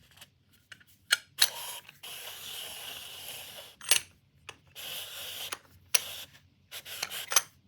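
A steel G-clamp being handled and adjusted, giving sharp metallic clicks and knocks with stretches of scraping and rubbing as it is wound toward its closed position.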